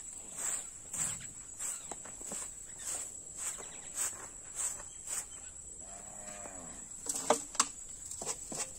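Stiff bundle broom swishing over bare dirt in short strokes about twice a second, then a cow lets out one short moo about six seconds in. A few sharp knocks follow about a second later, over a steady high insect whine.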